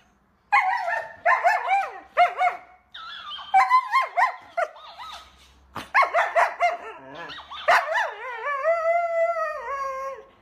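A husky howling and yowling in a run of wavering calls that rise and fall in pitch, with short breaks between them. The last call is long and drawn out.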